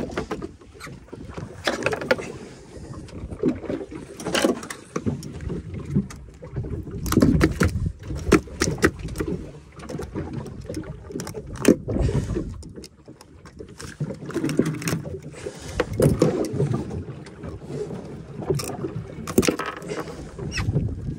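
Ambience of a small fishing boat on the water: an uneven low rumble of water against the hull that swells and fades. Many short knocks and clicks are scattered through it, from handling on the fibreglass deck as a hooked fish is unhooked with pliers.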